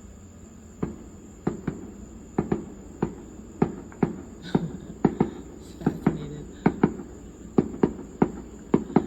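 Fireworks going off in a quick, irregular string of sharp pops and cracks, about two a second. Crickets chirr in a steady, high background.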